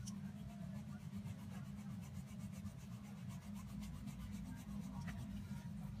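Faint, steady low hum, with only very faint sound above it.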